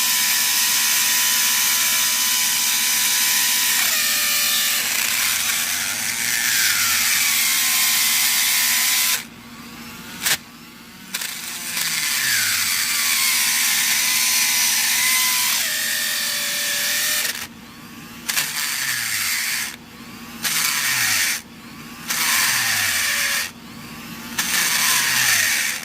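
Electric drill driving a burr bit into the core of a Kaba padlock, grinding through the metal. It runs steadily at first, then from about nine seconds in it stops and starts in a series of short bursts.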